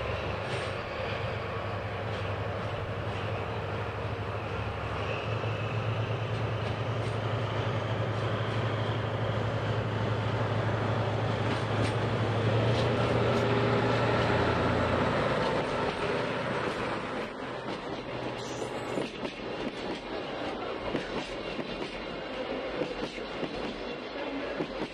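Sagano Scenic Railway Torokko train running, its wheels clicking over the rail joints, over a steady low drone from the DE10 diesel locomotive. The drone drops away about fifteen seconds in, leaving the wheel clatter.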